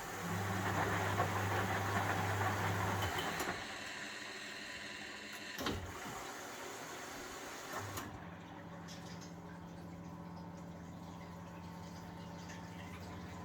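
1971 Constructa Garant 491 washing machine in its wash phase: the drum motor hums with the laundry and water sloshing for about three seconds, then stops. Two sharp clicks follow, and the motor starts turning the drum again with a quieter hum.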